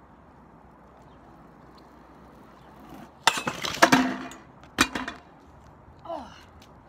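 Crash on a homemade grind rail of metal pipe on wooden blocks: a clattering run of metal impacts with ringing, then a second sharp clank about a second later, marking a failed grind. Near the end comes a short falling groan from the rider.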